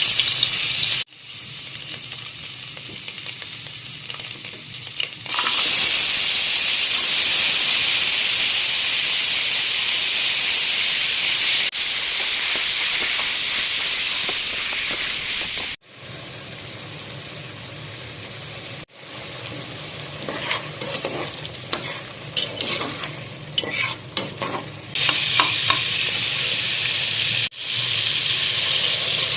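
Food sizzling as it fries in a pan, with a utensil stirring and scraping against it. The hiss stops and starts abruptly several times, with scattered clicks of stirring in the quieter middle stretch.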